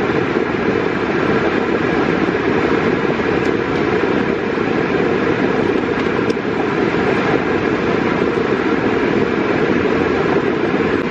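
Steady road and engine noise inside a car's cabin while driving.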